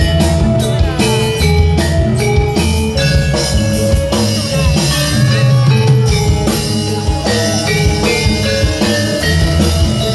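Live Javanese jaranan accompaniment: drums and struck metal gamelan keys playing held pitched notes over a continuous drum rhythm.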